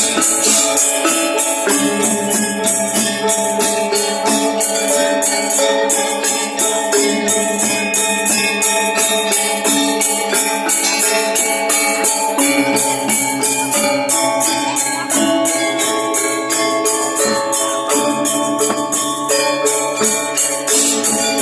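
Balinese gamelan gong ensemble playing: bronze metallophones ring out a sustained melody over fast, steady cymbal clashes.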